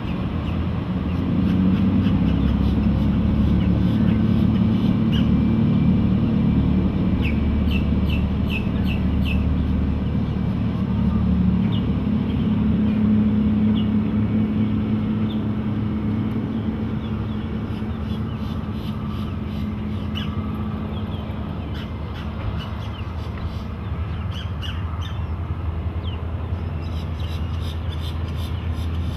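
Twin MerCruiser 5.0-litre V8 inboard engines of a 2000 Chaparral 290 cruiser running under way, heard as a steady low drone that fades in the second half as the boat moves off. Birds chirp now and then.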